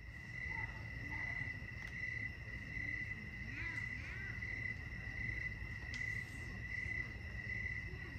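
Crickets chirping in a steady high trill that swells in regular pulses a little more than once a second, with a few faint clicks.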